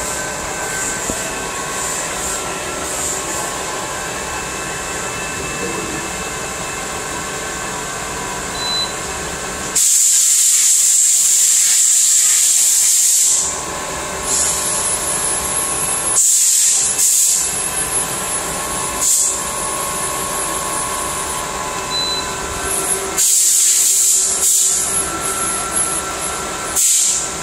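Okuma CNC lathe running with its spindle turning: a steady machine hum made of several fixed tones. Over it come loud bursts of hiss, the longest lasting about three and a half seconds from about ten seconds in, with shorter ones later.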